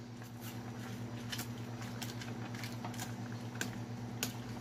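A ladle working napa cabbage down into a stainless steel pot of simmering pork soup: scattered soft clicks and taps against the pot, over a steady low hum.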